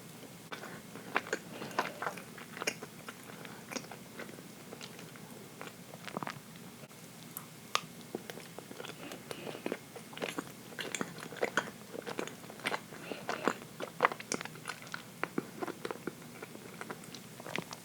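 A person chewing and biting dense chocolate cake close to the microphone, with many small, irregular mouth clicks.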